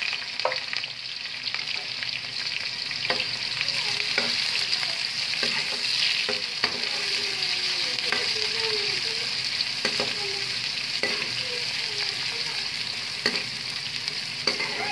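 Sliced onions frying in hot oil with whole cinnamon and cloves in a metal pot: a steady sizzle as they are stirred, with the spoon clicking and scraping against the pot every second or two.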